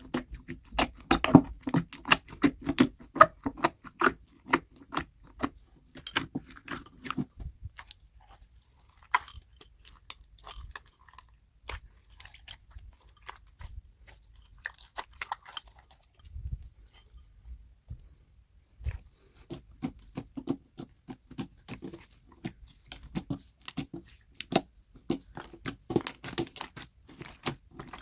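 Slime being squished and pressed, a dense run of sticky clicks and crackles that thins out and grows quieter for several seconds in the middle, then picks up again.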